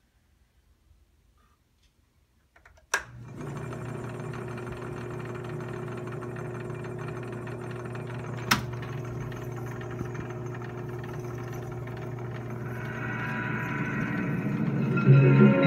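RCA Victor 7-TR-2 reel-to-reel tape recorder switched on with a sharp click about three seconds in, then a steady hum. Another sharp click of a piano-key control comes about halfway through, and music from the tape starts to come up through the recorder's speaker near the end.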